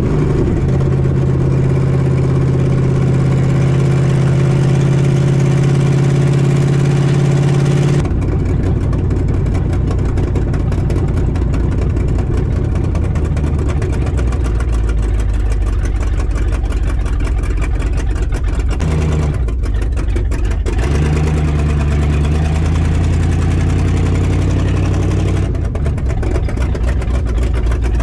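1968 Dodge Charger R/T's V8 engine running on a Demon carburetor. It holds a steady note for about eight seconds, then breaks abruptly into a rougher, deeper running sound, with a short break about twenty seconds in.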